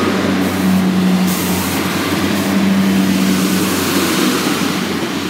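Class 144 Pacer diesel multiple unit pulling away and passing close by, its underfloor diesel engines running under power with a steady engine note.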